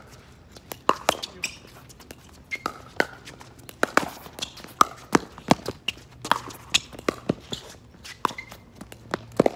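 Pickleball rally: sharp pops of paddles striking a hollow plastic ball and the ball bouncing on the hard court, many in quick succession, mixed with footsteps on the court surface.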